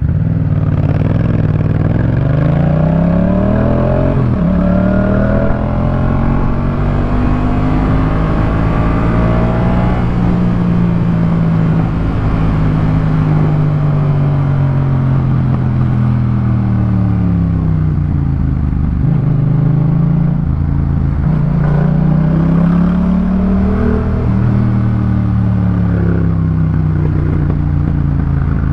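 2018 Yamaha MT-07's 689 cc crossplane parallel-twin running through a Jeskap K4 full aftermarket exhaust, revving up and down as the bike accelerates, shifts and slows in traffic. The pitch climbs with a gear change about four seconds in, falls away through the middle, then rises and drops again in the last third.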